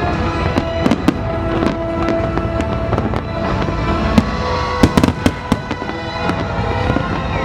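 Fireworks bursting: scattered sharp bangs, with a quick cluster of them about five seconds in, over continuous music.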